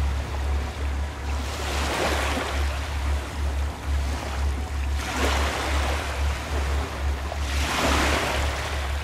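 Sea waves washing ashore, with three swells of surf about every three seconds, over a low hum that pulses steadily.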